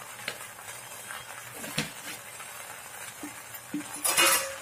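Goat brain frying in oil in an aluminium pot: a steady sizzle with a few small pops, growing to a louder burst of sizzling about four seconds in.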